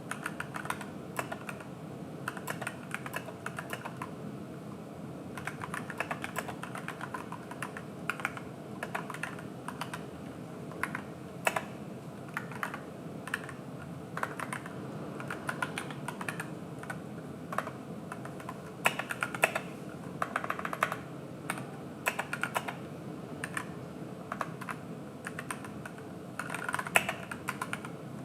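Typing on an AKKO 3061S Tokyo R2 61-key mechanical keyboard with pre-lubed Gateron switches: runs of quick keystroke clicks with short pauses between them, and a few louder single strikes.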